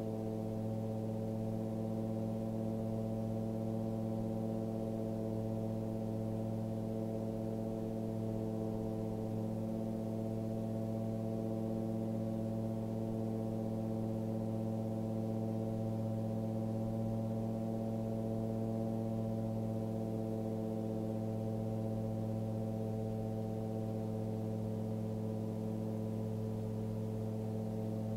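Titan Tornado light aircraft's engine and propeller running steadily at takeoff and climb power: an even, muffled drone with no change in pitch.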